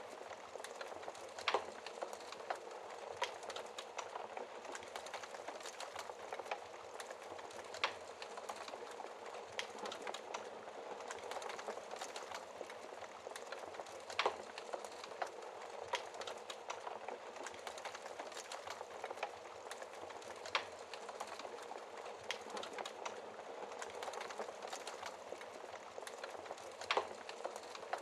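Wood fire crackling in a fireplace: a steady hiss of small crackles with irregular sharp pops, a louder one every few seconds.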